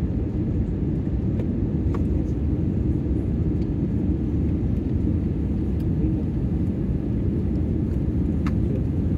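Steady low rumble inside a jet airliner's cabin from its underwing turbofan engines and the airflow over the fuselage, as the plane descends toward landing.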